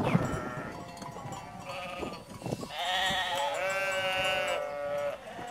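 A herd of goats bleating, several calls overlapping one another, with the longest and loudest call a little past the middle.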